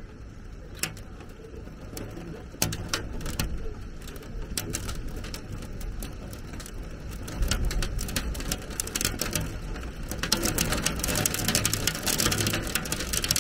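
Heavy storm rain hitting surfaces, with scattered sharp ticks that thicken into a dense patter over the last few seconds. There is a low rumble about halfway through.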